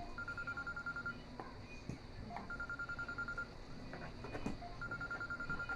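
A phone ringing: a high, rapidly pulsing electronic ringtone that sounds in bursts of about a second, three times, with short pauses between.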